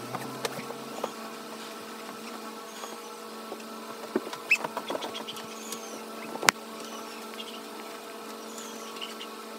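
Steady electrical hum under scattered light taps, rustles and faint short squeaks from a child shifting about on a couch, with one sharp click about six and a half seconds in.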